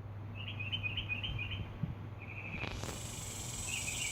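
High-pitched chirps repeated in short quick runs over a low steady hum; a hiss comes in a little under three seconds in.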